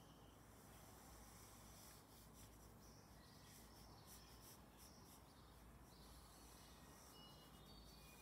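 Faint scratching of a graphite pencil sketching on paper, in light intermittent strokes over a very quiet room.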